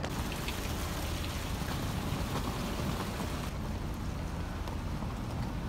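Rain falling on a wet city street: a steady hiss with a low rumble underneath. The higher part of the hiss drops away about three and a half seconds in.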